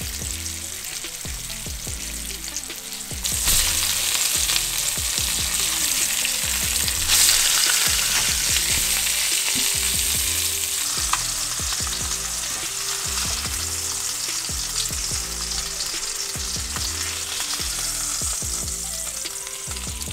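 Flour-dredged almaco jack fillets sizzling as they pan-fry in olive oil over medium heat in a stainless steel sauté pan. The sizzle jumps louder a few seconds in and again around seven seconds, then slowly eases off.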